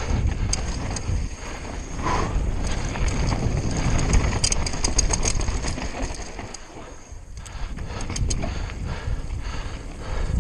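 Downhill mountain bike riding fast over a loose, rocky trail: tyres rolling over stones and the bike rattling, with wind on the microphone. A run of sharp clicks comes about halfway through, then it goes quieter for a couple of seconds before picking up again.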